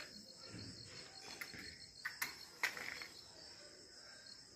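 Crickets chirping steadily, with a few short scratching clicks about two seconds in, the loudest just before three seconds, as a matchbox cracker is struck against a matchbox to light it.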